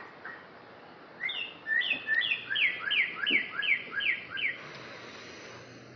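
Northern cardinal singing: a phrase of about ten repeated slurred whistles, about three a second, after two short single notes near the start.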